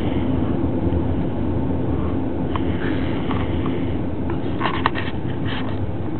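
Snoring: a steady low rumble with a higher breath sound that comes back about every three to four seconds. A few soft clicks fall about five seconds in.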